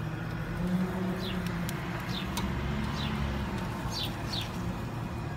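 A bird gives about five short, falling chirps, spaced irregularly, over a steady low outdoor rumble.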